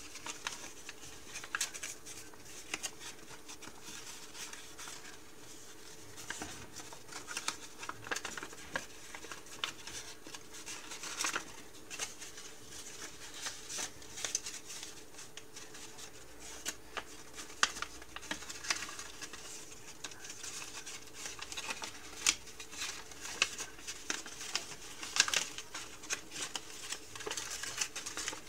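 A sheet of paper being folded by hand: irregular rustling, crinkling and short crisp clicks as the paper is handled and creased.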